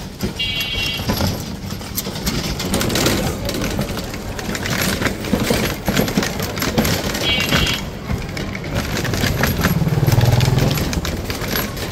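Motor vehicle ride on a rough, bumpy road: an engine running under a steady bed of road noise, with frequent knocks and rattles from the jolting. Two short high tones sound, one near the start and one about seven seconds in, and a low hum swells near the end.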